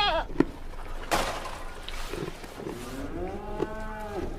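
A cow mooing once: one drawn-out call about a second and a half long, rising then falling in pitch, starting about three seconds in. Before it, about a second in, there is a brief burst of noise.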